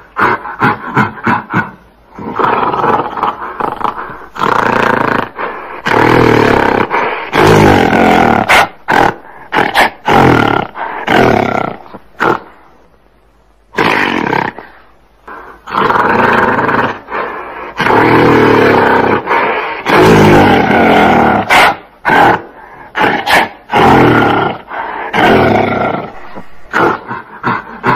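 Gorilla roaring: a series of loud roars lasting one to two seconds each, with runs of short, sharp grunting sounds between them and a brief lull about halfway through.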